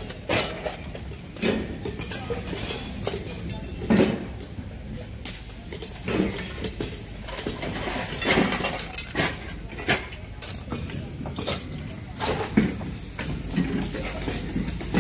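Light sheet-steel scrap parts from dismantled motors and compressors clinking and clattering as they are handled and sorted by hand, a string of irregular metallic knocks.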